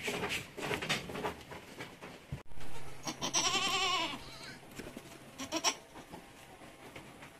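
A goat, of the farm's Anglo-Nubian crosses, gives one long, loud, wavering bleat about three seconds in. Light knocks and rustling come before it, and a few short sounds follow.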